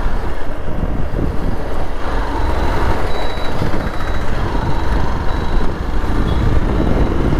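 Hero Xpulse 200 single-cylinder motorcycle being ridden on the road: steady engine and road noise, with wind rushing over the microphone.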